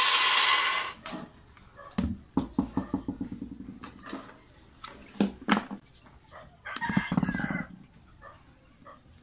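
Makita electric planer motor running with its drive belt off, then stopping about a second in. After that, small clicks of handling and chickens clucking, with a rooster crowing a little after halfway.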